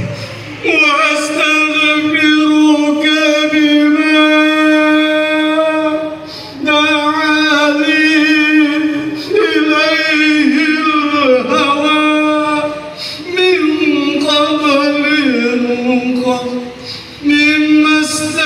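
A male voice chanting an Islamic devotional prayer in long, held notes with wavering ornaments, in phrases of a few seconds with short breaks between them.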